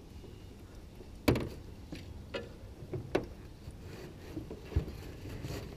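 A few sharp knocks and clicks, the loudest a little over a second in, over a low steady rumble.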